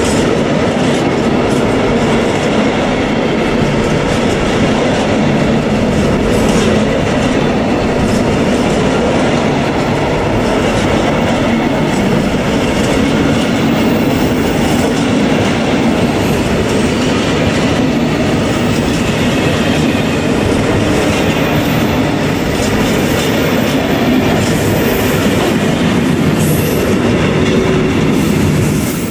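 Freight train of intermodal container flat wagons rolling past, with a loud, steady noise of steel wheels running on the rails.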